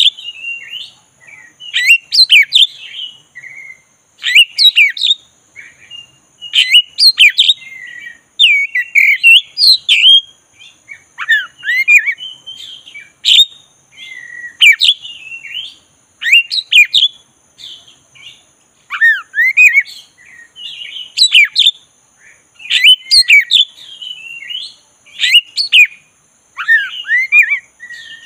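Black-bellied form of the Oriental magpie-robin (kacer dada hitam) singing on and on: loud whistled phrases of sweeping, rising and falling notes, a new phrase about every two seconds.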